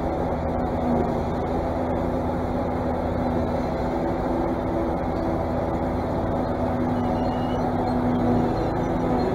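Claas Jaguar self-propelled forage harvester running steadily while chopping haylage: a constant machine drone with a held low tone.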